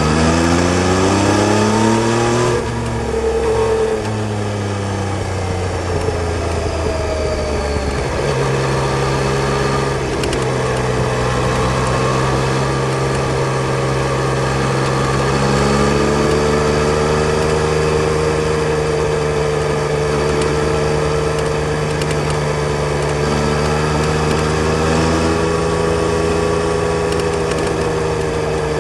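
Yamaha Tracer 900 GT's three-cylinder engine pulling with rising pitch for about two seconds. The pitch drops sharply as the throttle closes, sinks slowly for several seconds, then settles into a steady drone with small rises and falls.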